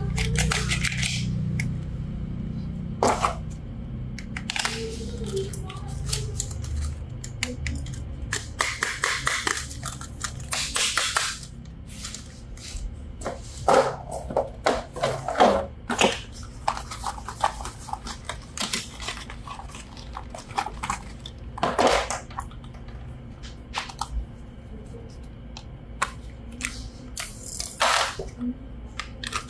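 Toy packaging and parts being handled during an unboxing: scattered clicks, crinkles and rustles, with a low hum during the first several seconds.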